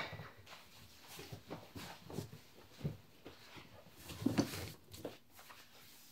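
Clothing rustling with a few soft knocks as a canvas jacket and hoodie are pulled off, loudest about four seconds in.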